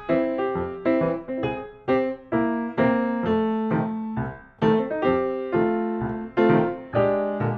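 Background piano music: a gentle melody of single struck notes, each ringing and fading, about two notes a second.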